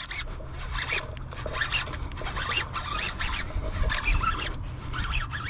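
Fishing reel cranked hard while a hooked bass is hauled in through matted pond weed and bank grass: a run of dry, irregular zipper-like scratching and rustling.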